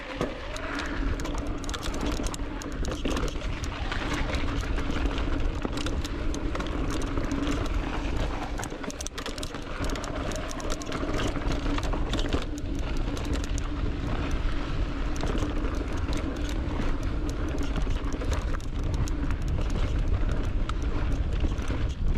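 Electric mountain bike being ridden on a dirt trail: a steady motor whine runs under tyre noise and wind rumble on the chest-mounted camera, with frequent rattles and knocks from the bike over rough ground.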